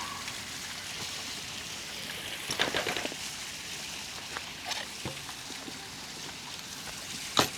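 Steady hiss of falling or running water, with a few sharp clicks and knocks about two and a half seconds in and a single loud click near the end.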